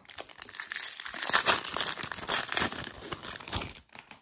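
Foil wrapper of a trading-card pack crinkling and tearing as it is ripped open by hand, the crackling loudest in the middle and dying away near the end.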